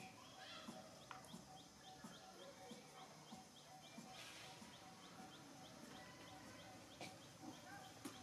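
Near silence: faint outdoor ambience, with a steady series of short high chirps, about two or three a second, through the middle, and a few faint clicks.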